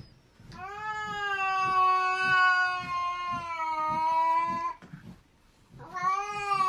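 A domestic cat giving one long drawn-out meow lasting about four seconds, then starting another call near the end.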